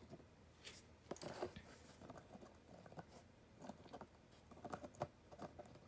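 Faint, irregular clicks and scrapes of small resin scale-model parts being handled as a tiny machine gun is pressed onto a model tank turret roof.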